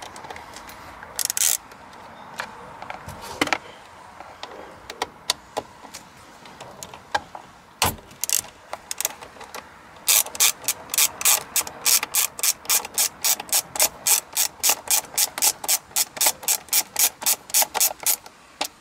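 Hand socket ratchet with a Torx T-30 bit clicking as it backs out a screw at the back of a steering wheel hub. A few scattered clicks at first, then from about halfway a fast, steady run of clicks, about five a second, as the handle swings back and forth.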